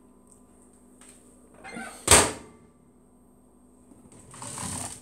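A single sharp knock about two seconds in, a hard item striking in the kitchen, over a faint steady hum. A short rustling noise follows near the end.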